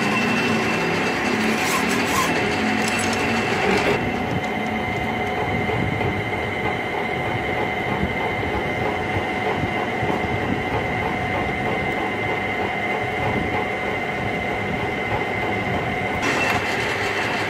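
Metal lathe running steadily, a drive whine held over a rough mechanical rumble. The sound shifts slightly about four seconds in and again near the end.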